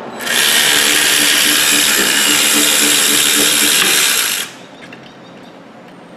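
Power ratchet running for about four seconds, spinning out a rear brake caliper bracket bolt, then stopping suddenly.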